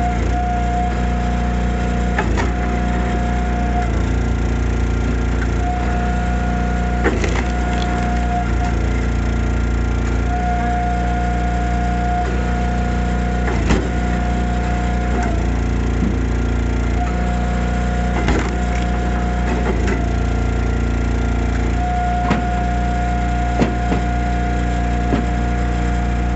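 Easton Made hydraulic log splitter running on its engine, splitting firewood. The engine drones steadily and its note changes in several stretches as the ram pushes rounds through, with about five sharp cracks of wood splitting.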